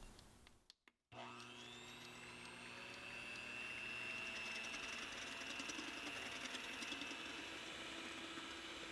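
Electric hand mixer running, its beaters whipping cream in a stainless steel bowl: a steady motor hum and whine that starts about a second in.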